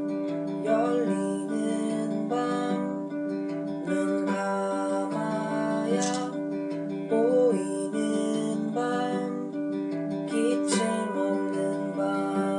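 Acoustic guitar strummed steadily, accompanying a song performed live.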